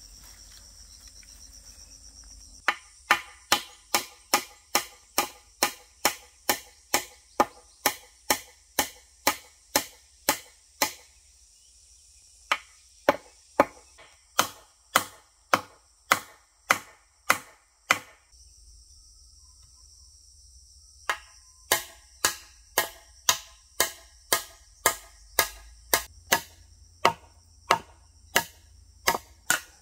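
Hammer blows on a wooden pole, about two a second in three runs with short pauses, as a crossbar is nailed to a post. Insects chirr steadily in the background.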